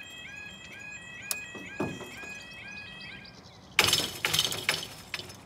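Level crossing audible alarm sounding in a quick repeating pattern of rising two-tone chirps, which stops about three seconds in as the barrier arms rise. About a second later comes a loud rattling clatter as the barriers settle upright.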